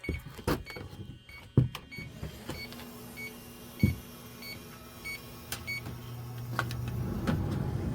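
Air-conditioning unit being powered back on: a few sharp clicks, then a steady motor hum that starts and grows louder over the last few seconds as the unit starts up.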